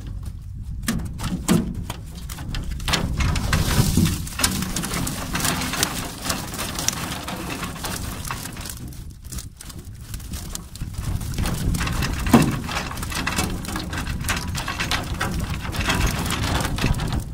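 Water streaming and dripping off a net fish trap as it is hauled out and emptied into a boat, with live fish flapping and knocking against the hull. There are many small splashes and knocks, thinning out about midway and picking up again, with one sharper knock a little after the middle.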